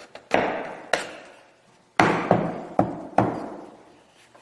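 A run of sharp wooden knocks and cracks from a half-lap joint piece being worked by hand, about six strikes in four seconds. The loudest comes about two seconds in, and each one trails off in a long fading ring.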